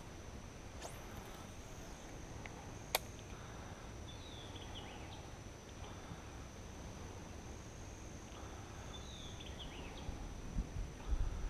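Outdoor ambience at a pond: a steady high-pitched insect drone with two short runs of falling bird chirps. A single sharp click about three seconds in, and a few low bumps near the end.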